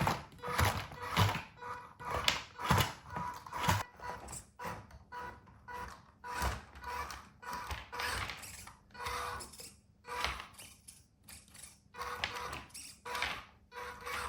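Remote-control toy off-road truck driving over an obstacle course, with irregular plastic knocks, bumps and rattles as it climbs and drops over the obstacles.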